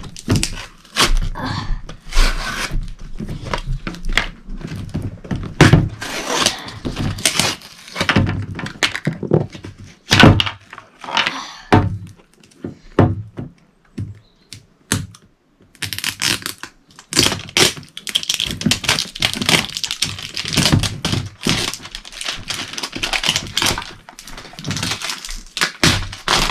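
A cardboard toy box being handled and opened by hand: irregular knocks, thuds and clicks. In the second half there is a denser stretch of scraping and tearing.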